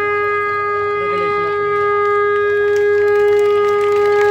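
Conch shell (shankh) blown in one long, steady held note that breaks off near the end.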